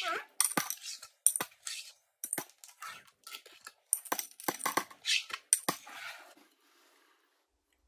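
Coins picked up off a desk and dropped into a money pot: a quick, uneven run of metallic clinks and taps that stops about six seconds in.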